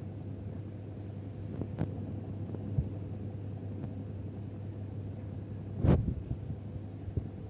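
Steady low background hum with a few soft knocks of a handheld phone being moved, the loudest about six seconds in.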